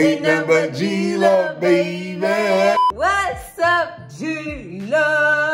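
Voices singing a short wordless tune, the held notes sliding up and down.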